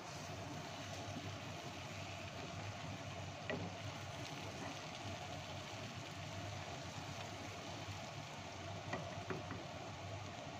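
Wooden spoon stirring a vegetable and halloumi stew in a pan, with a few light knocks against the pan over a steady hiss.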